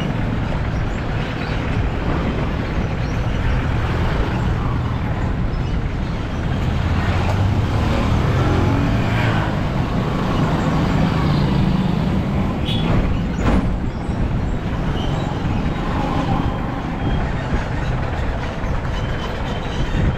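Motor-vehicle engine and road noise from a car driving through town traffic, a steady low rumble that swells and eases, with two brief sharp knocks about thirteen seconds in.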